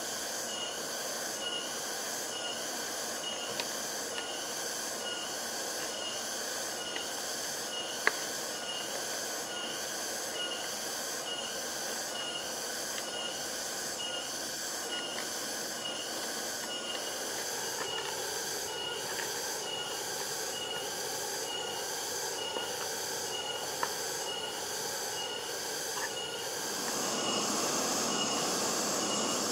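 Insects chirping in a steady, rhythmic pulsing chorus, with a few sharp taps of a knife on a wooden cutting board. About 27 seconds in, the background becomes louder and fuller.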